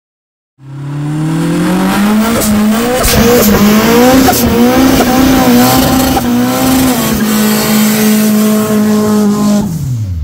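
Toyota Corolla KE70 doing a burnout: the engine climbs and is then held at high revs, wavering, while the spinning tyres screech. The revs drop away sharply near the end.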